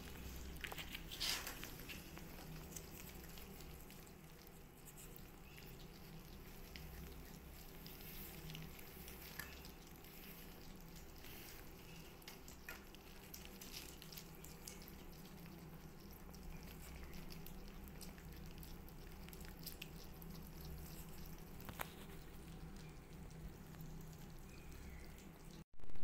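Kittens eating dry cat food soaked in soup from a plate: faint wet lapping, smacking and small crunching clicks, scattered throughout, over a steady low hum.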